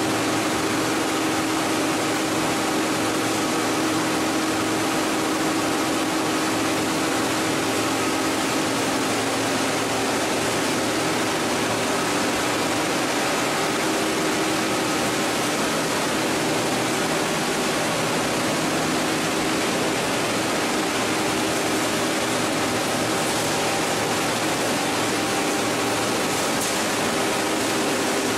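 Steady, unbroken din of a PET bottle washing line running: motors and flake-washing machinery together, with a constant hum.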